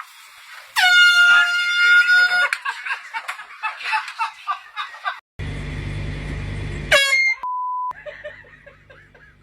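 Handheld air horn blasting loudly for about a second and a half, one steady pitched tone with a slight dip at the start, followed by a noisy, irregular stretch. A second short air horn blast comes about seven seconds in.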